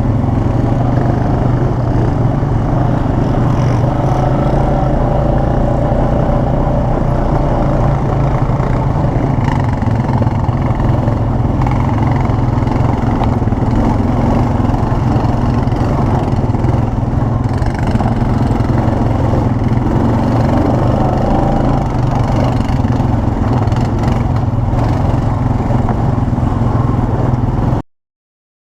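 ATV engine running steadily under way, with rough noise over a low steady drone; the sound cuts off abruptly near the end.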